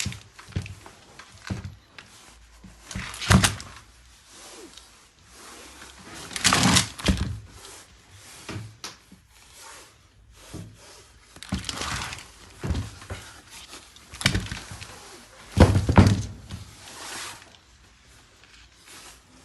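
Irregular thunks and knocks of a heavy metal hydraulic pump being handled, turned over and set down on a hard surface, with quieter rubbing between. The loudest knocks come about 3 s, 7 s and 16 s in.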